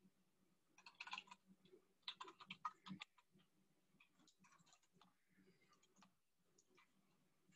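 Faint typing on a computer keyboard, in quick bursts about a second in and again around two to three seconds in, followed by scattered softer clicks.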